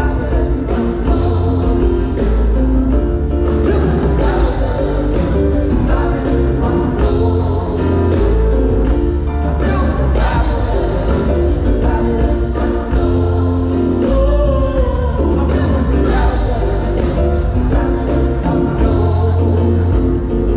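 A choir singing over a live band, with a steady drumbeat and heavy bass.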